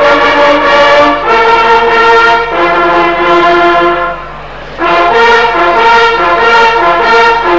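Brass band playing a slow tune in held notes; the phrase breaks off about four seconds in, and a new one of shorter repeated notes starts under a second later.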